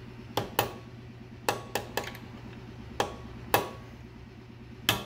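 Small hammer striking a punch to drive out the pad retaining pin of a Brembo brake caliper. There are eight sharp metallic taps, coming singly and in quick pairs and threes.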